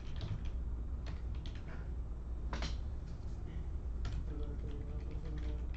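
Irregular typing and clicking on a computer keyboard, with one sharper click about two and a half seconds in, over a steady low hum.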